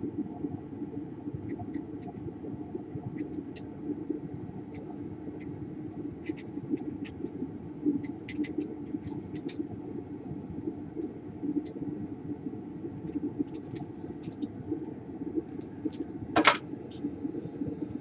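Steady low hum with scattered light ticks and clicks from small tools and a syringe working at a laptop motherboard's power-jack area; one louder click near the end.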